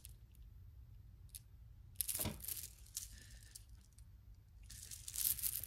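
Faint handling noise of jewelry being sorted: a few soft clicks and a sharper knock about two seconds in, then a burst of rustling near the end.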